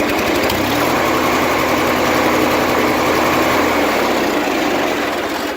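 Murray riding lawnmower engine running steadily just after being started with its rewired ignition key switch, then winding down near the end.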